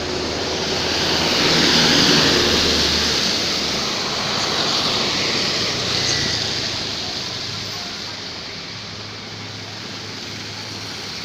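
Rain and traffic on a wet road: a steady hiss that swells about two seconds in and again around six seconds, over a low engine hum.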